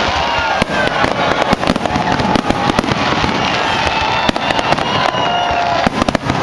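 Fireworks display going off in a dense, rapid barrage of bangs and crackles, with short wavering high tones over it.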